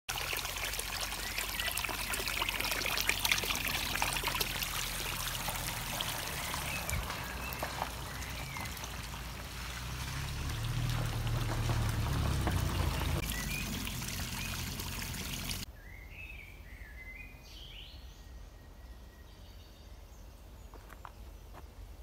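Water pouring from a pipe into a concrete trough, splashing steadily, with a low rumble near the middle and a few bird chirps. About two-thirds of the way through the water sound cuts off abruptly, leaving a much quieter background of birds chirping.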